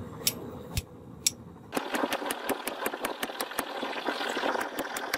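Hammer blows on red-hot steel rebar over an anvil: three separate strikes, then from just under two seconds in a rapid, even run of blows about five a second, over a steady hiss.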